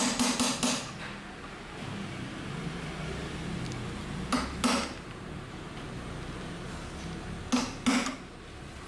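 Sharp metallic knocks in short groups, three at the start, two about four and a half seconds in and two near the end: a screwdriver being struck to break loose a very tight Phillips screw that holds a motorcycle's regulator-rectifier.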